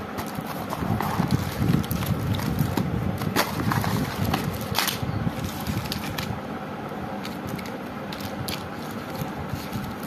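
Hands handling firecracker packs wrapped in red cellophane, pulling them out of a cardboard box and laying them on a tiled floor: crinkling plastic, rustling cardboard and light taps and scrapes. A few sharp crinkles stand out in the middle, over a steady background noise.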